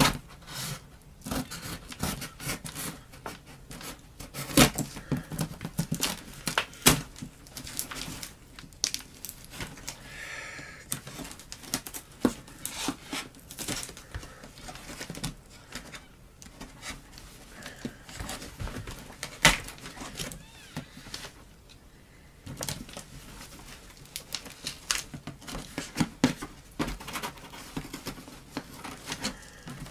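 Scissors cutting and scraping along packing tape on a cardboard box, with tape tearing and cardboard flaps rustling, in irregular scrapes and snips.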